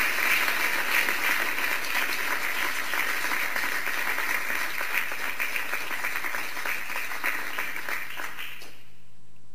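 Audience applause: steady clapping from many hands that dies away near the end.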